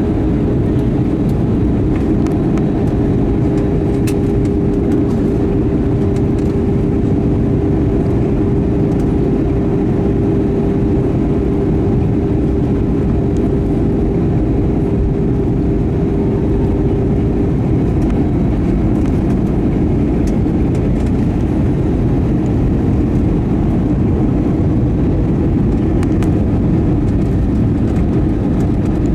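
Cabin noise inside an Airbus A320-232 on final approach: a steady rumble of airflow and its IAE V2500 engines. A thin steady hum within it stops a little over halfway through.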